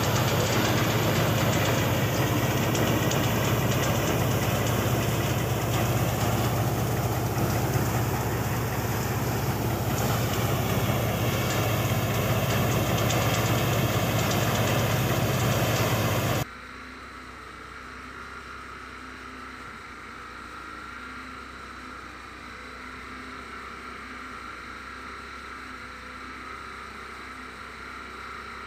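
Tractor-driven paddy thresher running under load with a loud, steady drone. About 16 seconds in it cuts off abruptly to a much quieter, steady hum.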